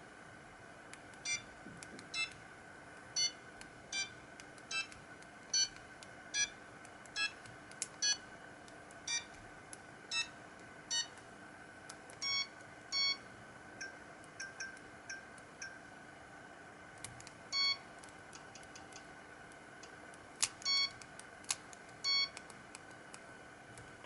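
Siemens mobile phone playing a monophonic ringtone: a melody of short electronic beeps at changing pitches, one note at a time, with a few longer held notes in the second half. A faint steady hum runs underneath.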